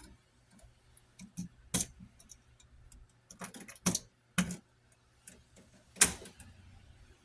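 Scattered small clicks and taps of a ground wire being bent into a loop around a wall receptacle's green ground screw, the sharpest about six seconds in.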